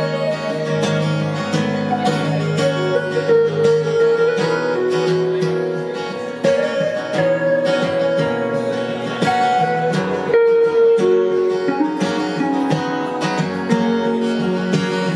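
Instrumental break in a live band song: an archtop electric guitar plays a melodic lead of picked single notes over strummed acoustic guitar chords.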